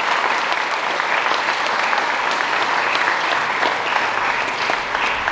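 An audience of students applauding: many hands clapping steadily.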